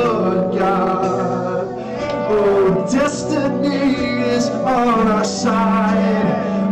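Live church worship music: singers holding long, wavering notes over instrumental backing.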